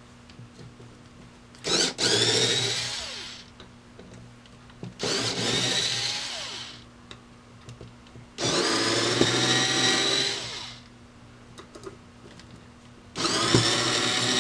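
Cordless electric screwdriver backing out the square-drive screws of a vending mechanism's back plate: four runs of a couple of seconds each, every one starting with a rising whine as the motor spins up, with short pauses between screws.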